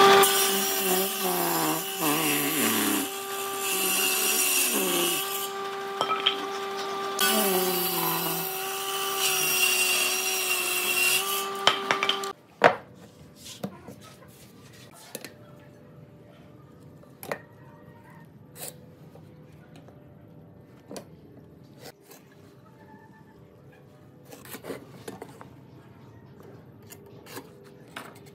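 Table saw running with a steady whine and cutting a board, the rougher noise of the cut coming and going over the first dozen seconds. It stops abruptly, and after that there are only light scattered knocks and taps of wood being handled.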